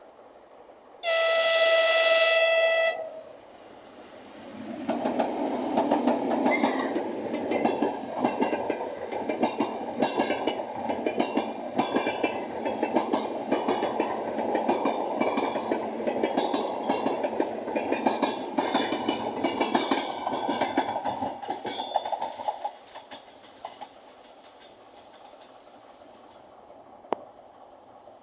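A diesel locomotive's horn gives one steady blast of about two seconds. The train then passes close by for about eighteen seconds, its wheels clattering rhythmically over the rail joints, and the sound fades out near the end.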